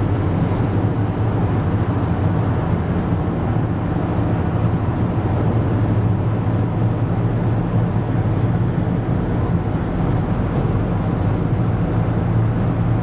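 Steady road and engine drone heard from inside a car cabin while driving at highway speed, an even low rumble with no change throughout.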